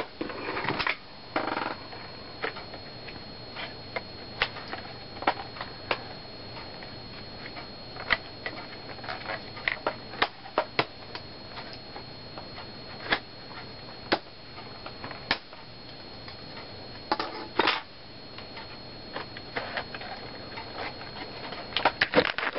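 Irregular sharp plastic clicks and snaps, with some handling and rubbing noise, as parts of a Panasonic Toughbook CF-47 laptop are pried and popped up by hand, with a louder scraping snap about 17 seconds in. A steady high-pitched whine from the recording camera runs underneath.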